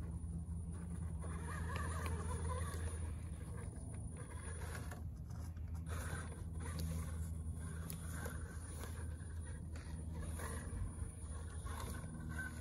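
Element Enduro Sendero RC crawler truck's electric motor and geartrain whirring steadily at crawling speed, a low steady hum, with the tyres scraping and crunching over loose dirt.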